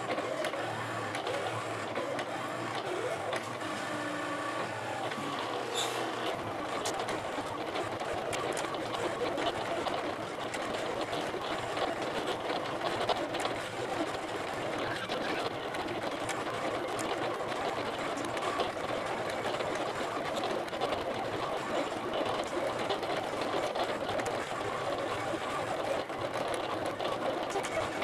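Silhouette electronic cutting machine cutting paper on a carrier mat. Its stepper motors whir steadily as the blade carriage shuttles side to side and the rollers feed the mat back and forth, with shifting motor tones in the first few seconds.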